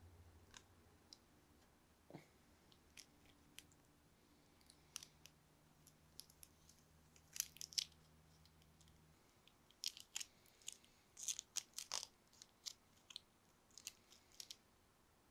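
Thin plastic protective film crackling and crinkling as it is peeled off a phone and handled, in scattered short crackles that grow busier in the second half.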